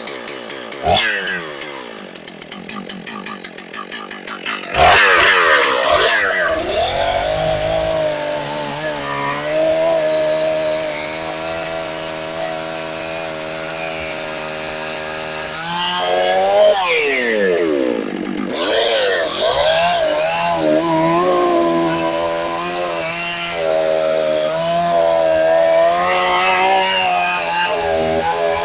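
Stihl MS 661 two-stroke chainsaw just after starting: it idles for about four seconds with what the owner calls a big-cam sound. Then it is throttled up and bucks through a pine log under load. The engine note drops and climbs again around two-thirds of the way in, then holds steady in the cut.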